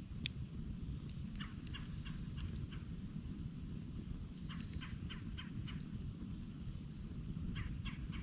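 Campfire burning with a steady low rush and one sharp pop just after the start, while a bird calls in three runs of quick, short, repeated notes.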